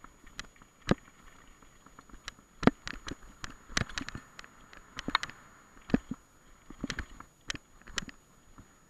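Mountain bike rolling over rough grassy singletrack. Irregular sharp knocks and rattles come from the bike as it goes over bumps, with tyre noise on the trail between them.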